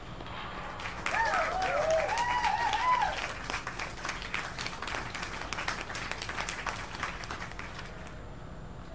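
Spectators clapping for about seven seconds after a point is won, with excited voices cheering during the loudest part at the start.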